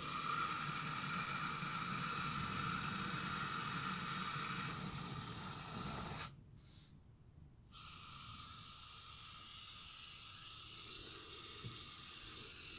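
Garden hose spray nozzle running water into a 2-gallon plastic pump sprayer, filling it: a steady rushing hiss. It cuts off about six seconds in and resumes more quietly about a second and a half later.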